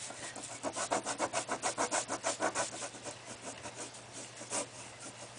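Felt-tip marker scribbling back and forth on paper, a quick run of scratchy strokes at about five or six a second that slows and fades in the second half.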